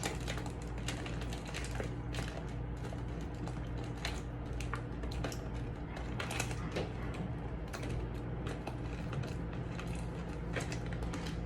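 Pasta going into and being stirred in a pot of boiling water: many small irregular clicks and light knocks over a steady low hum.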